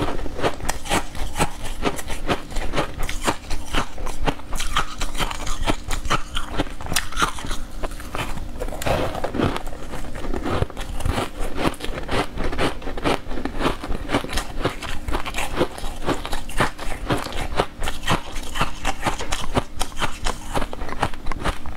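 Close-miked biting and chewing of a crumbly green powdered sweet, a dense, unbroken run of crunchy clicks and crackles.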